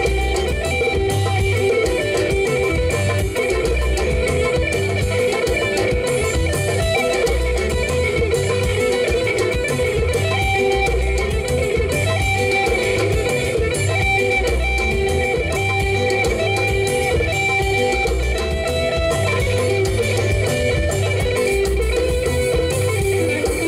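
Live band playing, led by electric guitar with bass guitar under it and a steady low beat.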